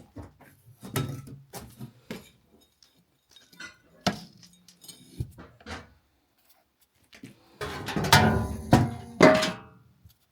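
A series of knocks and clattering of handled objects, densest and loudest about eight to nine and a half seconds in, with some ringing.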